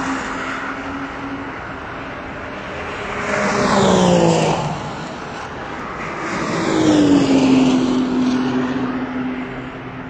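Two track-day cars going by at speed one after the other, about four and seven seconds in, each engine note dropping in pitch as it passes; the second car's note holds on as it pulls away.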